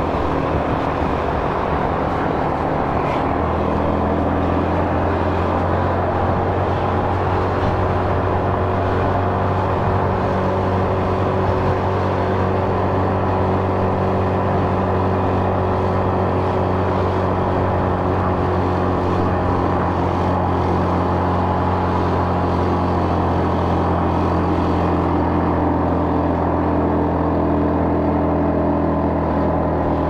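Motorbike engine running at a steady, even pitch while riding, settling to that speed about three seconds in.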